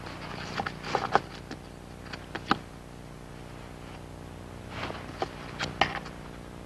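Small clusters of sharp clicks and knocks: several about a second in, two more around two and a half seconds, and another group near the end. A steady low hum runs under them.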